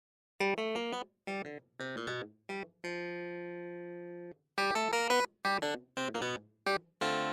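Instrumental background music: short phrases of quick melodic notes broken by brief gaps, with two long held notes that slowly fade, starting about half a second in.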